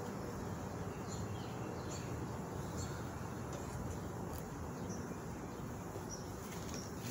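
Honeybees humming steadily around a crowded nuc hive, with a few faint bird chirps scattered through.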